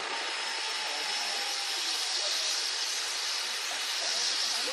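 Two pyrotechnic spark fountains spraying with a steady, even hiss.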